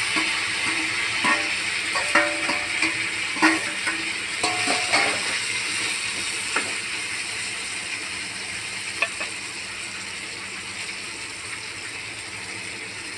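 Fried brinjal, tomatoes and garlic sizzling as they go into hot oil with crackled cumin in a kadhai, the sizzle slowly dying down. A steel ladle knocks and clinks against the pan several times in the first half.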